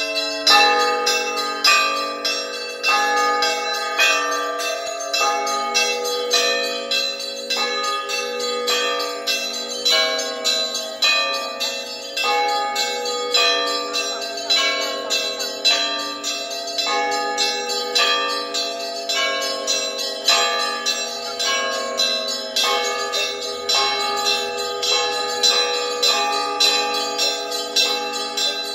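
Russian Orthodox church bells rung by hand from a bell tower (zvon). Quick rhythmic strikes on the smaller bells ring over the long, sustained hum of the larger bells.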